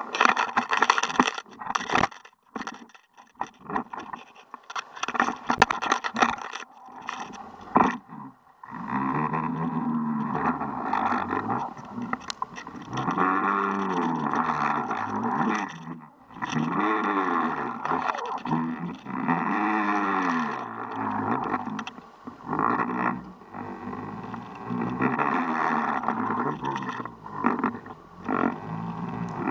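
Heard underwater: a fast series of sharp knocks and rattles as a fish strikes the jig and bumps the line-mounted camera, then, after about eight seconds, a steady hum whose pitch rises and falls every few seconds while a fish hangs hooked on the jig.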